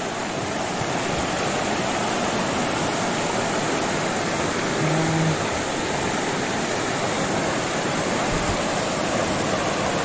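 Fast, muddy river water rushing over rocks and through rapids, a steady, even rush of noise.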